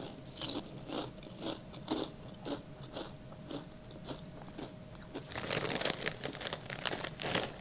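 Someone biting into and chewing crunchy kettle-style potato chips (Zapp's Voodoo): a sharp bite, then crunches about twice a second, with a denser run of crackling over the last two seconds.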